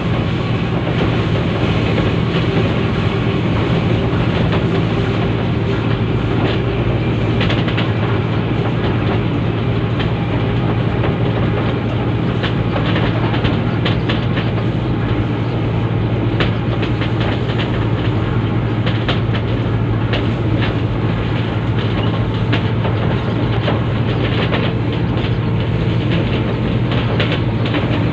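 Diesel locomotive running steadily along the track, heard from aboard the locomotive: a constant low engine drone with wheels clicking over rail joints, the clicks more frequent in the second half.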